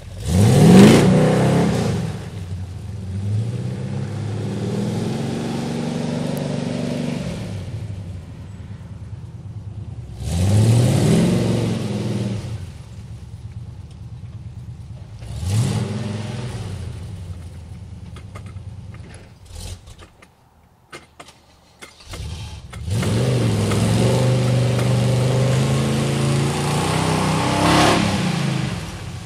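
Chevy 454 cubic-inch big-block V8 in a 2500 pickup revving hard in repeated bursts, each rising in pitch, with steady full-throttle running between them. The engine sound almost disappears about two-thirds in, then comes back for a long sustained run near the end.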